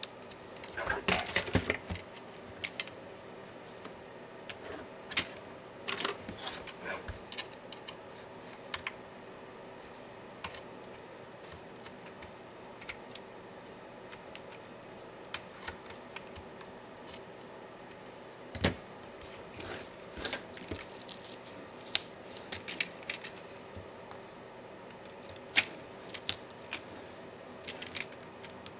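Scattered sharp clicks, taps and small clatters of hand tools and small plastic and metal laptop parts being handled during disassembly, with a short flurry about a second in and single sharp ticks later.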